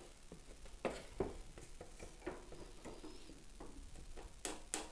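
Wooden knocks and rubbing as a thin guitar top board is turned over and set in a bench vise, followed near the end by two sharp metallic clicks as the vise's handle is turned to clamp it.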